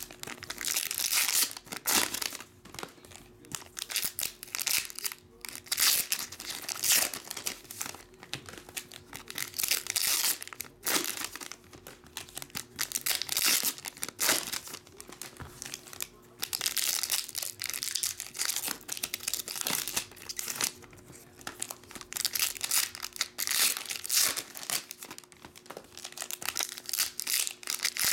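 Foil trading-card pack wrappers crinkling and tearing as packs are ripped open one after another, in irregular bursts.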